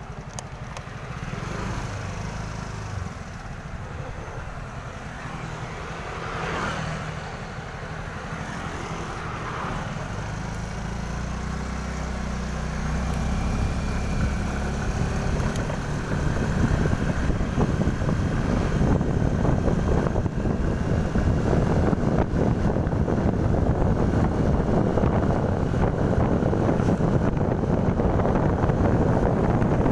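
Motorcycle engine running on the move, with wind noise on the microphone that grows steadily louder over the second half.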